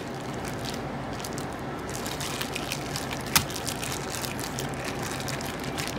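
Plastic cling wrap crinkling faintly as it is peeled off raw sanma fish, over a steady rushing background noise, with one sharp click about three and a half seconds in.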